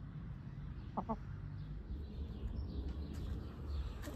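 A backyard hen gives two short clucks about a second in, over a steady low background rumble.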